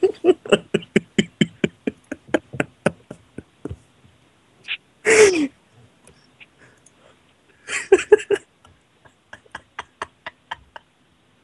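A person snoring, heard through a Skype call: loud rasping snorts about five seconds in and again near eight seconds, with quick clicking, rattling pulses between them.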